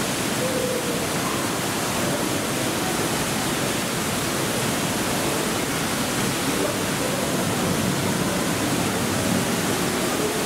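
Steady, even rushing noise, the constant background of the crocodile enclosure; the crocodile lying still makes no sound.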